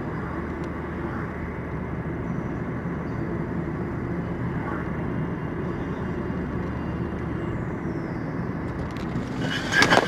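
Car engine and road noise heard from inside a moving car: a steady low rumble. About half a second before the end, a brief, louder sudden sound breaks in.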